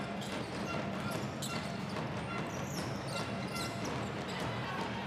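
Live basketball game sound: the ball bouncing on the court and brief high squeaks over steady crowd noise from the stands.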